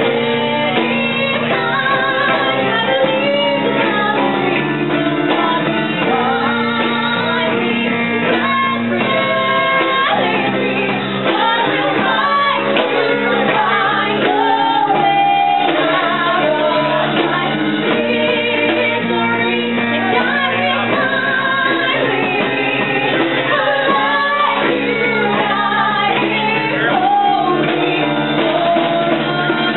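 Live acoustic music: a ukulele and an acoustic guitar strummed together under a singing voice, played in a room.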